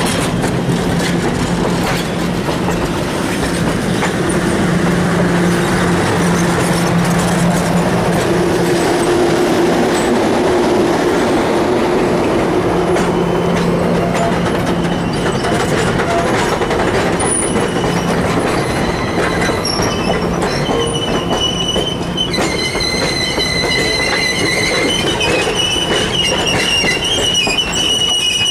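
Streamlined passenger cars rolling slowly past at close range: a steady rumble and clatter of steel wheels on rail, with a steady low hum for the first part. From about two-thirds of the way in, thin high squeals from the wheels and running gear join in as the train pulls in.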